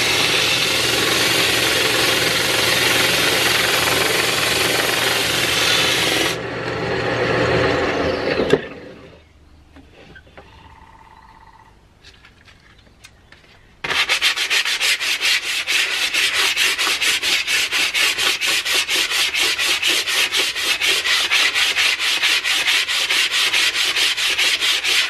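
Sandpaper held against a wooden mallet handle turning on a wood lathe: a steady hiss over the hum of the lathe motor. The sanding stops after about six seconds and the lathe winds down to a stop. A few seconds later comes quick back-and-forth hand sanding along the stationary handle, about four or five strokes a second.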